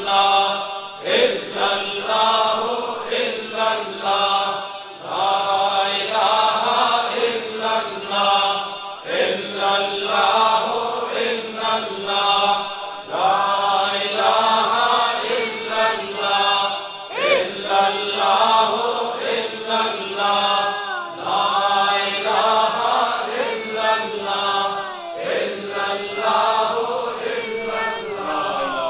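A congregation of men chanting zikr together, one phrase repeated over and over in a steady cycle of about four seconds, with a short break between repeats.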